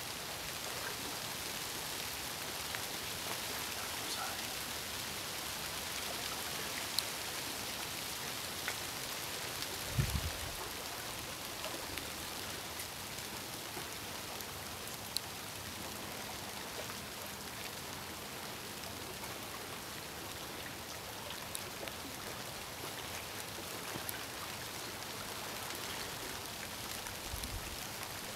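Steady outdoor hiss with scattered faint ticks, and a low thump about ten seconds in.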